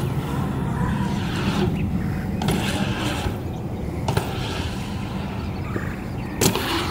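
BMX bike tyres rolling and carving on a concrete bowl, with a sharp knock about four seconds in and a louder knock of a landing near the end.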